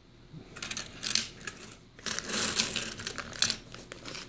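40% silver Kennedy half dollars clinking against one another as they are slid and shuffled by hand on a wooden board, in scattered clusters of clicks, busiest from about two to three and a half seconds in.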